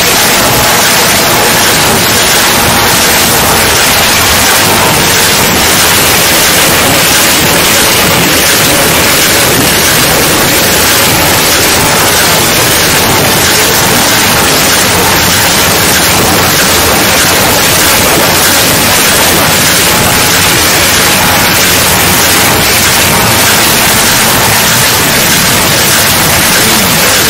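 Loud, steady hiss of noise like static, unchanging in level, spread evenly from low to high pitches.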